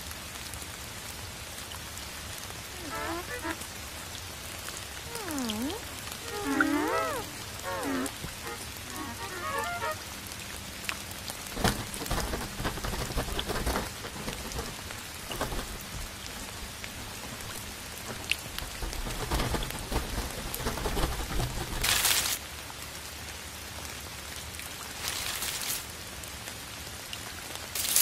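Animation soundtrack ambience: a steady rain-like hiss, with wavering, gliding tones for several seconds a few seconds in. A series of low thuds follows, then two short bursts of brighter hiss near the end.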